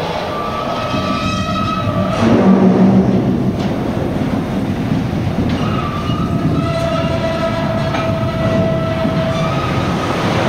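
Rotary wagon tippler turning a railway coal wagon: a heavy, steady mechanical rumble of the rotating drum, louder about two to three seconds in, with long steady steel squealing tones that come and go.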